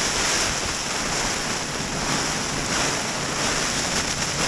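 Strong gusting wind and rain beating on the nylon rainfly of an REI Half Dome 2 Plus tent, heard from inside the tent as a dense, steady rush.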